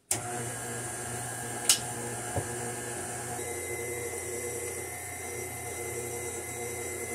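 KitchenAid stand mixer switching on and running steadily, its flat beater mixing thick cake batter in the stainless steel bowl. A sharp click about a second and a half in.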